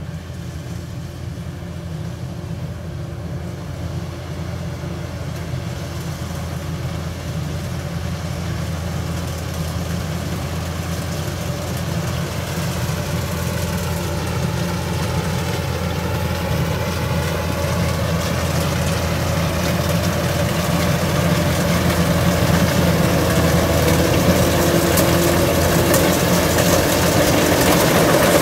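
Kubota DC105X combine harvester running as it cuts rice, its engine and threshing machinery making a steady low drone. The drone grows steadily louder as the machine comes up close.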